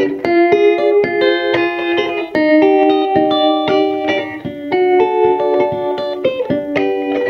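Electric guitar picking a quick run of clean, ringing single notes through a Purr vibrato pedal, several notes a second.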